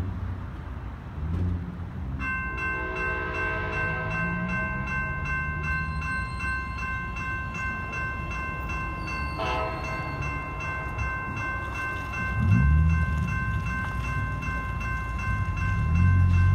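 Railroad crossing warning bell starts ringing about two seconds in and keeps ringing steadily as the crossing activates and the gate arm lowers. A low rumble underneath grows louder near the end.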